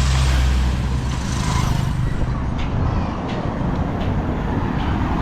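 Road traffic: a motor vehicle's engine running close by, loudest in the first two seconds and then fading, over steady street noise.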